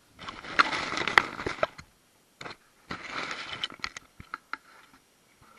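Cardboard being chewed and torn, in irregular bursts of crunching and crackling, the longest in the first two seconds and another about three seconds in, with scattered sharp clicks between.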